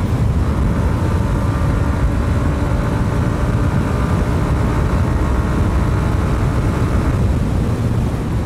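Hero Xtreme 125R's single-cylinder 125 cc engine running hard under throttle while the bike rides at speed, over heavy wind rumble on the microphone.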